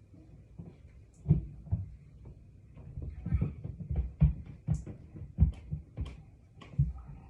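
Irregular dull thuds and knocks, about ten of them, unevenly spaced, typical of household banging in a kitchen. A faint steady high whine runs underneath.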